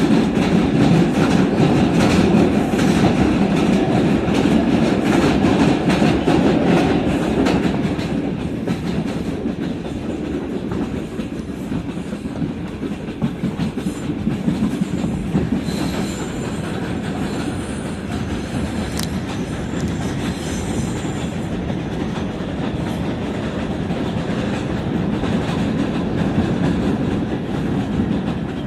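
R142 subway car running at speed, heard from inside the car with its HVAC off: a steady rumble of wheels on rail with clacking over the rail joints. The rumble is louder at first and eases off about eight seconds in.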